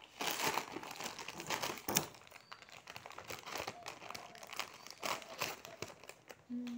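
Plastic packet of whole-wheat atta (flour) crinkling irregularly as it is handled and its corner cut open with scissors, with a few sharper snips and crackles.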